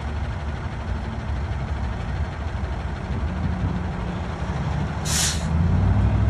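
A heavy vehicle's engine running steadily at idle, growing a little louder, with one short sharp hiss of air about five seconds in, like an air brake letting off.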